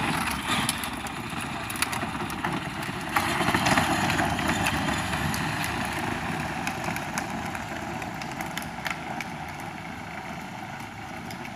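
Power Wheels ride-on toy quad running at turbo speed on a 12-volt lawnmower battery: electric drive motors and gearboxes running and hard plastic wheels rumbling on pavement, with scattered clicks, fading as it rolls away.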